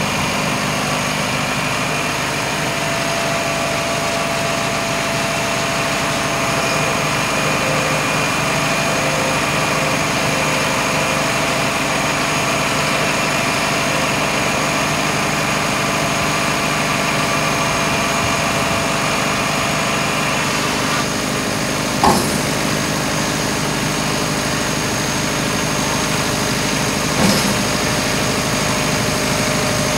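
Iveco 7.5-tonne tipper's diesel engine idling steadily while the hydraulic tipping body is raised and lowered. The tone shifts about two-thirds of the way through, followed by two short knocks a few seconds apart.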